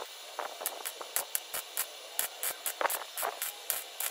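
MIG welder crackling in short bursts, about four or five a second, as a steel patch panel is welded into a rusted rocker sill.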